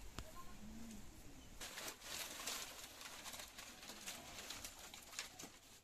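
Dry palm fronds and sticks rustling and crackling as they are pulled from a firewood pile, starting about one and a half seconds in. A faint low coo, like a dove's, comes just before.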